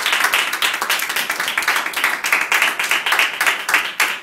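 Audience clapping steadily, thinning out near the end.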